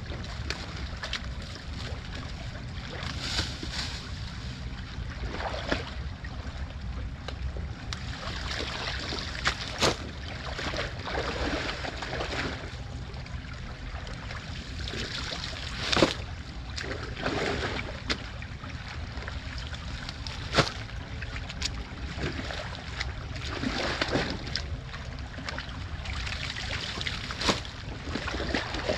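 Shallow creek water running, with repeated splashing and wet rustling as soaked leaf litter and sticks are pulled out of the water by hand and rubber boots slosh in the stream. A few sharp knocks stand out above it.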